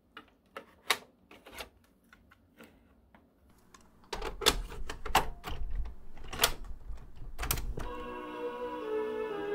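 Plastic clicks and clunks of a Supersonic SC-3200 cassette boombox being worked by hand: the tape door and a cassette being handled, with a low rumble under the louder clunks midway. Near the end a top button is pressed and the deck starts playing slow music with held notes.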